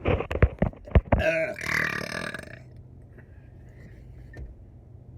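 A person burping: a few short sharp sounds, then one long drawn-out belch of about a second and a half that fades away.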